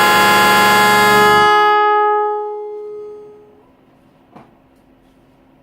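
ILDUNG Digital Fusion Slim digital car horn holding a loud, rich multi-tone blast. The blast breaks off about a second and a half in and rings away over the next two seconds. A faint click follows near the end.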